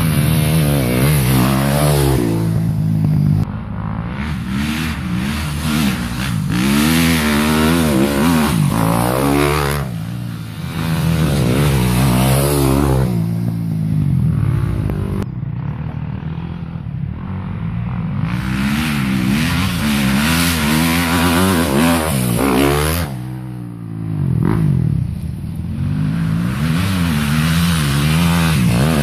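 Dirt bike engine revving hard up and down as it rides a dirt hill climb, its pitch rising and falling again and again with the throttle, with a few short dips where it eases off.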